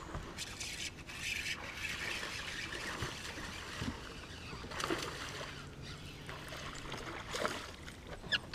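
A hooked largemouth-type bass splashing at the water's surface as it is reeled to the boat, with a few sharp splashes near the end as it is swung out of the water.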